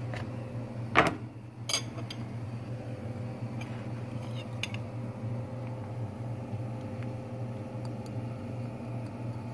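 A metal spoon knocking and clinking against a plastic mixing bowl as oil and spices are stirred: one sharp knock about a second in, a second soon after, then a few light clicks, over a steady low appliance hum.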